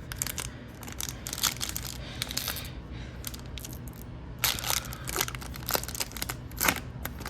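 Foil wrapper of a hockey card pack crinkling and tearing as it is opened, in a run of short crackles, with a denser flurry about four and a half seconds in.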